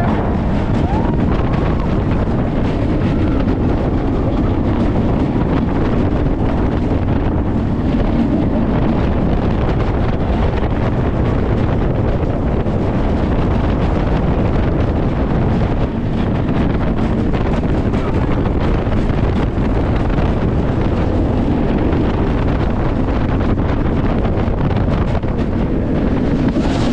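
Steady heavy wind buffeting on the microphone over the rumble of a Giovanola steel hyper coaster train running at speed on its track.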